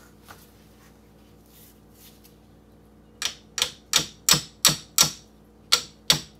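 A run of sharp metal taps, about three a second, starting a little after three seconds in with a brief pause near the end: a part being tapped down onto the armature shaft of a 6-volt Autolite starter during reassembly.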